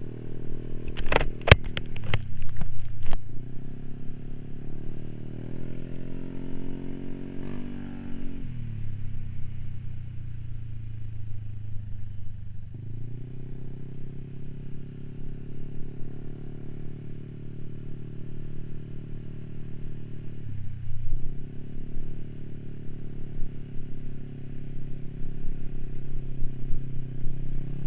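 Motor scooter engine running under way, its note dropping twice as the throttle eases and then picking up again. Sharp knocks and clatter in the first few seconds as the scooter rides over broken, patchy concrete.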